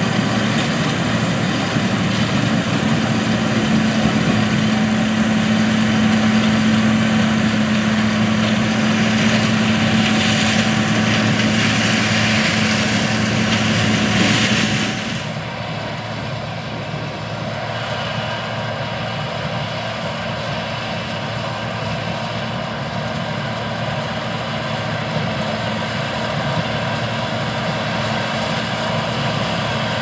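John Deere 7720 Turbo combine harvesting soybeans, its turbocharged diesel engine and threshing machinery running with a steady hum. About halfway through the sound drops to a quieter, steady drone.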